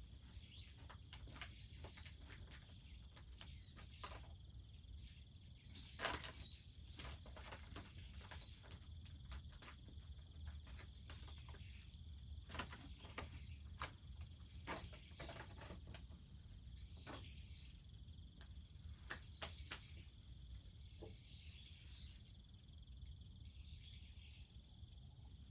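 Wood fire crackling with scattered sharp pops, the loudest about six seconds in, over a steady high insect trill.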